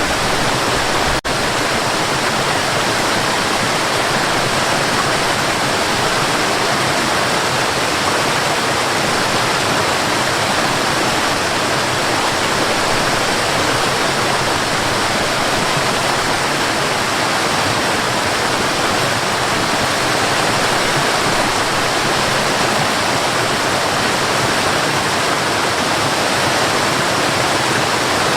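A mountain river's water rushing steadily, with one momentary break about a second in.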